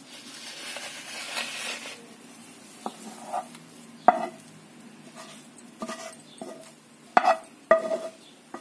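Wooden spatula scraping thick khoya out of a non-stick pan, then a series of sharp knocks of spatula and pan, several with a brief metallic ring.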